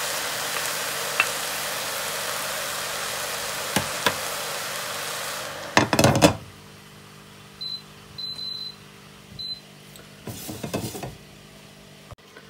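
A steady hiss stops about five and a half seconds in, followed by a glass pot lid clanking down onto a metal pot of rice. Then come several short high beeps from a glass cooktop's touch controls.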